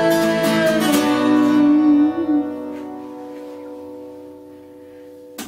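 Acoustic guitar strumming with an electronic keyboard on the final chord of a song. The strumming stops about a second and a half in and the last chord rings on, fading slowly, until a short sharp click near the end.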